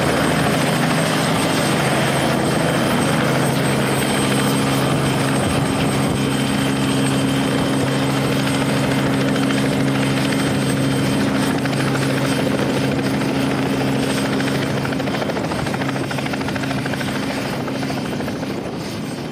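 Helicopter engine and rotor running: a steady drone with several low, even hum tones over a wash of noise, getting slightly quieter near the end.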